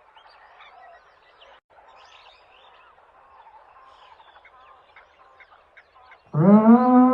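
Faint bird chirping for about six seconds, then a loud, long animal call of steady pitch starts near the end.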